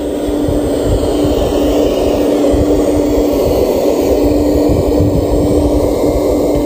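Radio-controlled Liebherr 970 scale hydraulic excavator running as it swings and digs: a steady, loud machine drone with a constant hum.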